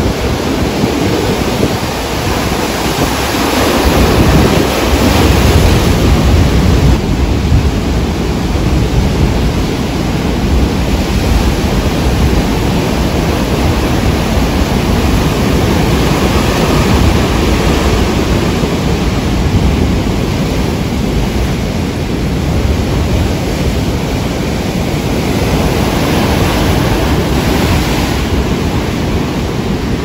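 Rough sea surf: large waves breaking one after another and churning into foam on the shore, a loud continuous rush heavy in the low end that swells as bigger waves break, a few seconds in and again near the end.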